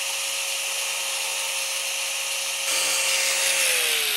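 DeWalt angle grinder with a cut-off wheel running with a steady high whine. About two-thirds of the way in it gets louder and harsher as it cuts a notch in an acrylic sheet. Near the end its pitch starts falling as the motor winds down.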